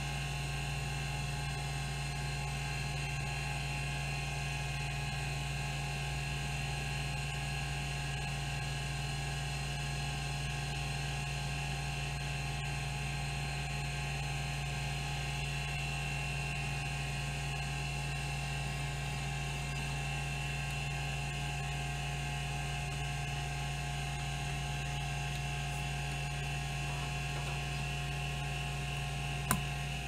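Rodime RO252 10 MB MFM hard drive under a track-to-track seek test: its stepper-driven swing-arm head actuator buzzes steadily as it steps from track to track, over the steady whine of the 3600 rpm spindle. A single sharp click comes just before the end as the heads are parked.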